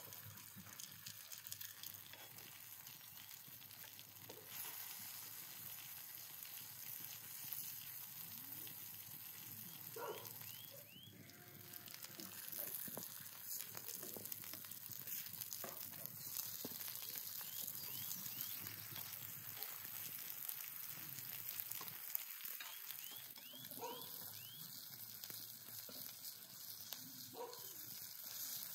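Sliced vegetables sizzling and crackling on a hot steel griddle over a fire, with occasional clicks of a metal spatula and tongs; a few short animal calls in the background.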